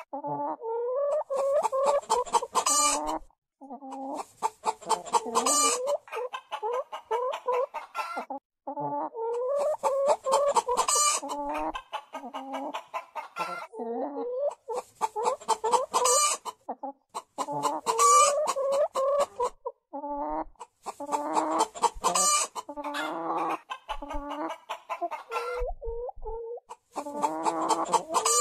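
Chickens clucking: runs of rapid, short, pitched clucks lasting a few seconds each, broken by brief pauses.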